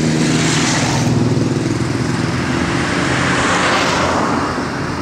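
Motorcycles passing on the road: a small trail bike rides by close and pulls away, just after a sports bike, and the engine and road noise fade near the end.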